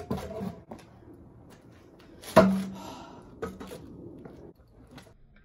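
Stunt scooter knocking against the pavement during flat tricks: one sharp metallic clack about two and a half seconds in with a brief ring after it, and lighter clicks and knocks of the deck and wheels around it.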